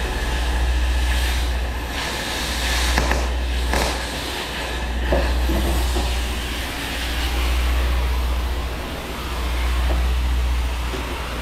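Cutting torch hissing as it cuts seized, rusted rear shock-absorber bolts off a semi truck, over a low rumble that swells and fades every few seconds. A few sharp metal clinks come about three to five seconds in.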